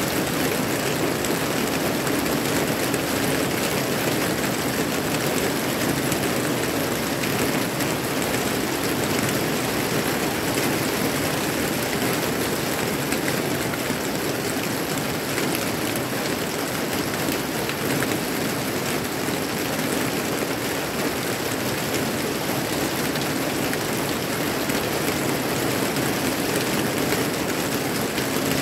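Steady rain falling on garden trees, leaves and vegetable beds: an even, unbroken hiss of rainfall.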